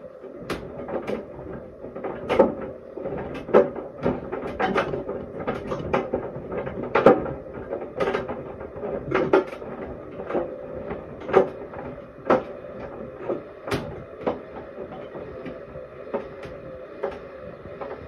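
Clothes dryer running near the end of its cycle: a steady motor and blower hum under a low rumble of the load tumbling in the drum, with irregular knocks and clicks about once a second.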